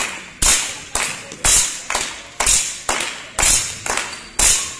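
Spectators clapping in a steady rhythm with a drum-like thump on the beat, a strong stroke about once a second and a lighter one between, each ringing on in the sports hall.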